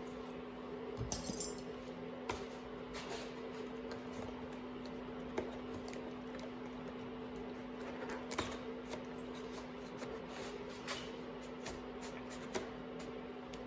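Motorcycle clutch cables and small parts being handled on a bench: scattered light clicks and taps, a few seconds apart, over a steady low hum.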